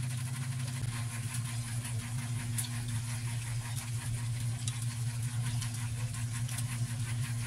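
A steady low mechanical hum, with faint scattered clicks and taps.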